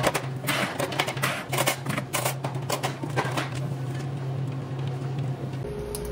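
Clear plastic display-counter trays and panels clattering and knocking against each other as they are lifted and stacked. The clatter thins out after about three seconds. A steady low hum runs underneath.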